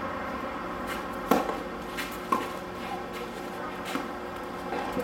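Tennis ball impacts on a hard court: two sharp knocks about a second apart, with a few fainter taps around them.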